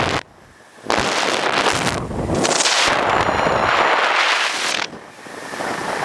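Rushing wind buffeting the camera microphone of a speed flyer in fast flight, loud and gusty. It drops away sharply for about half a second just after the start and dips again briefly near the end.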